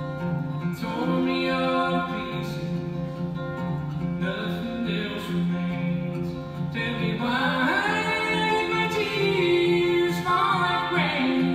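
A live acoustic duet: acoustic guitar and mandolin play under a singing voice. The sung phrases come in about a second in, and a long held phrase fills the second half.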